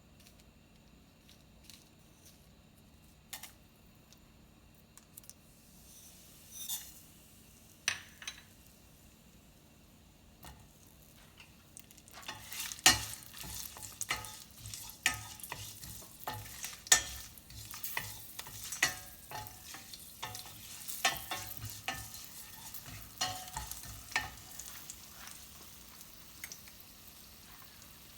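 Food frying in a pan and being stirred, the utensil knocking and scraping against the pan. There are only a few scattered clicks at first; from about halfway in come steady, frequent stirring knocks over a faint sizzle.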